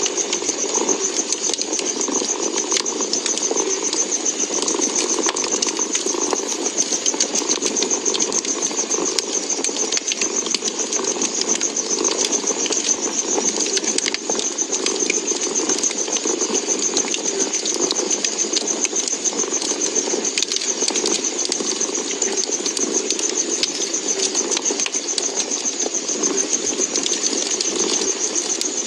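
Domestic cat purring steadily and continuously, with small crackles and pops from a wood fire scattered through it.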